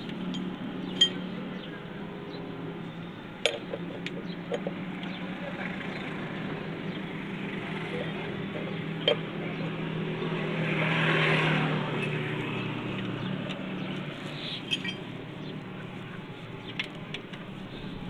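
Sharp metal clinks of a socket tool on the bolts of a car's underbody splash shield, a handful spread out, over a steady low hum. A hissing swell rises and fades about eleven seconds in.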